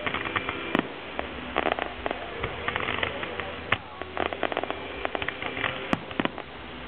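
Fireworks display: aerial shells and crackling stars going off in clusters of rapid pops, with a few single sharp cracks.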